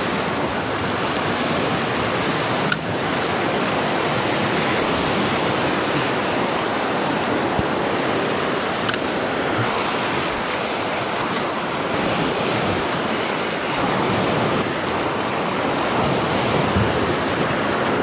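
Pacific surf washing steadily against a rocky shoreline, an even rushing wash of waves. A single sharp click about three seconds in.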